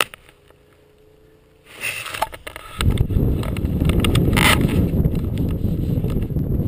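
Wind buffeting the microphone: a steady, loud low rumble that sets in about three seconds in, after a second of rustling and clicking as the camera is handled.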